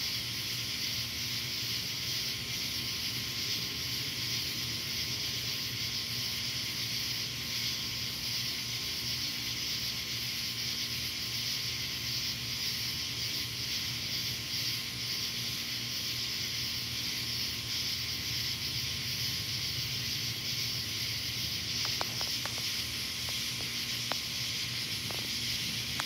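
Steady, high-pitched chorus of night insects, an even hiss that does not change, with a few faint ticks near the end.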